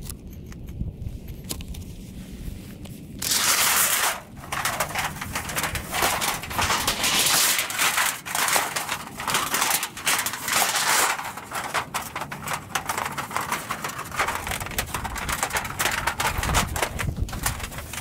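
Thin titanium sheet of a roll-up stove chimney pipe crinkling and crackling as it is rolled into a tube by gloved hands. The loud crackling starts about three seconds in and goes on with many sharp clicks.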